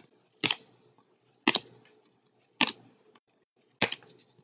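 Football trading cards being flicked through one at a time in the hand: a crisp card snap about once a second, four in all.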